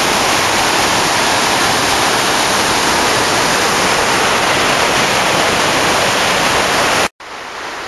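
Mountain stream rushing loudly over a rocky cascade, heard close up as a steady roar of whitewater. About seven seconds in it cuts off abruptly, giving way to a quieter hiss.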